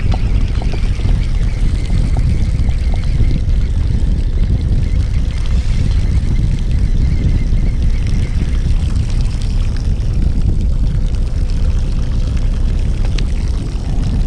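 Fishing boat's engine running with a steady low rumble, a faint steady whine riding over it for the first several seconds.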